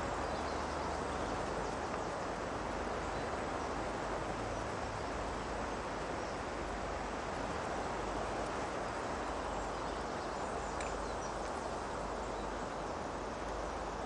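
Steady outdoor ambience: an even, soft wash of noise with no distinct events.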